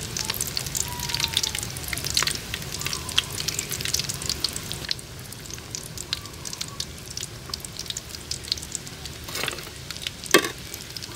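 Breadcrumb-coated balut (fertilised duck eggs) deep-frying in hot oil, sizzling with many small crackling pops. The popping thins out about halfway through, and one louder pop comes near the end.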